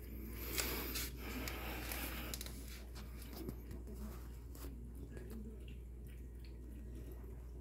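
Cat lapping water from an electric pet water fountain: irregular small wet clicks and splashes, busiest in the first two seconds or so.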